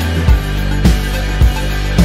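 Background music with a steady drum beat, a little under two beats a second, over held bass notes.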